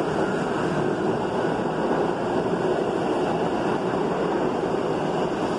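R68 subway cars departing the station and passing close by, a steady, loud noise of wheels running on the rails.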